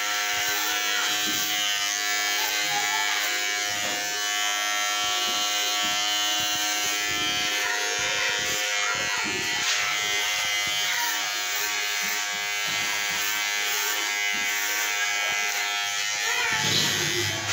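Electric hair clippers running with a steady buzz as they cut the hair at the back of the neck.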